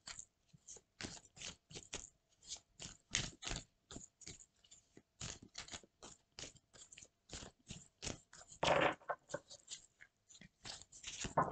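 A deck of oracle cards being shuffled by hand: a quick, irregular run of soft clicks and scrapes as the cards slide against each other, a little louder a couple of seconds before the end.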